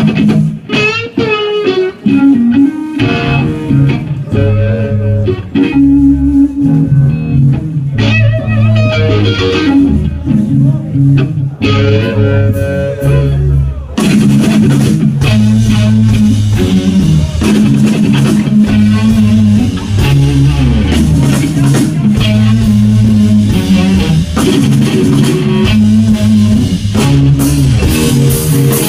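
Electric guitar playing rock over a bass line, the guitar bending and sustaining notes. About halfway through, the music becomes fuller and brighter and stays dense.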